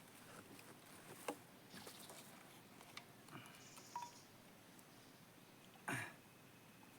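Near silence, broken by a few faint brief knocks, the clearest about six seconds in.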